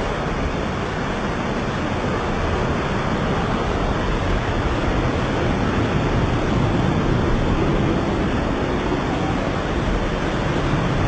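Torrential rain and floodwater running off, a loud, steady rushing noise.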